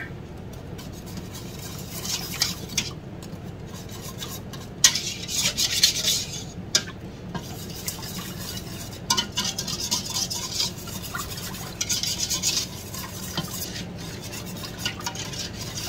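Dry sugar and arrowroot powder being stirred with a utensil to break up clumps of starch. The utensil scrapes in short, irregular spells.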